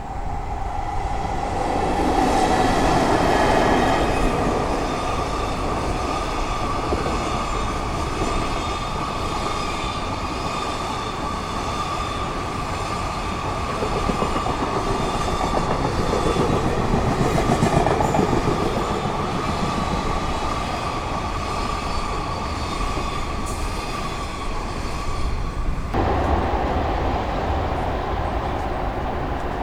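A train running through a station, with a steady high whine over the rumble and clicking of its wheels. The sound cuts off abruptly near the end and gives way to a different train sound.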